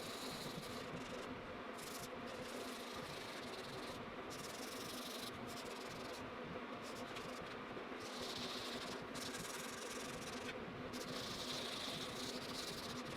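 A white finishing pad scrubbing oil finish into poplar by hand: a soft, steady hissing rub that comes and goes with the strokes, over a faint electrical hum.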